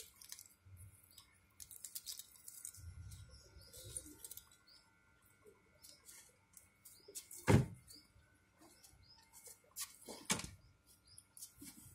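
Metal link watch bracelet being handled: small clicks and rustling, with two sharper clicks about seven and a half and ten seconds in, the first the loudest.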